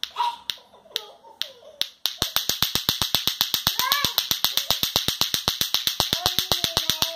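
Clackers toy (bate-bate), two balls on a string knocking together: a few separate clacks, then about two seconds in a fast, even run of clacks, around nine a second.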